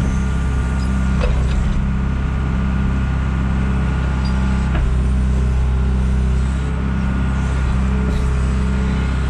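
John Deere 310G backhoe's diesel engine running steadily under work, with a few faint metallic clanks.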